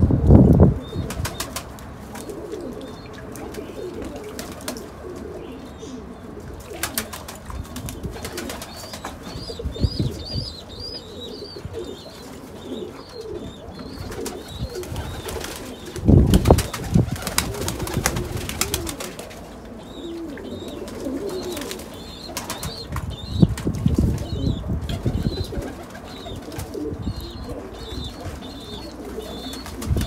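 Pakistani flying pigeons cooing steadily while they bathe in a shallow tray of water, with loud bursts of wing flapping and splashing at the start, about halfway through and again a little later. Small birds chirp faintly in the background.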